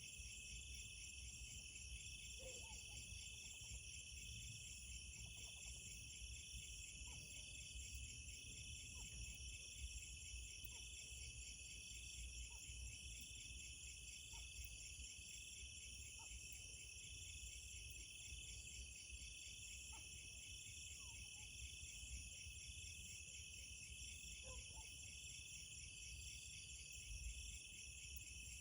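Night chorus of crickets and other insects: a faint, steady, high shimmering trill in several layers, with faint short calls every couple of seconds underneath.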